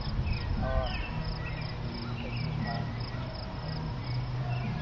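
Crickets chirping in an even rhythm of about four chirps a second, over a low steady hum and faint distant voices.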